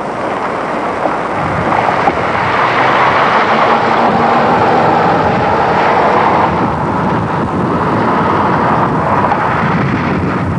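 Steady rushing noise of strong storm wind on a camcorder microphone. It swells about two seconds in and then holds loud.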